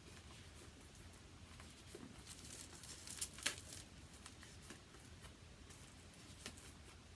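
Plastic shrink wrap being torn and peeled off a vinyl record sleeve: faint crinkling and rustling with a few sharper crackles about three and a half seconds in.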